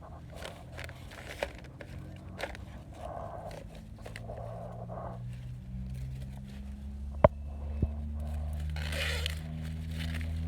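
Corn leaves and husks rustling and crackling as an ear of sweet corn is handled and pulled off the stalk, with a sharp snap about seven seconds in and a weaker one just after. A low steady hum runs underneath.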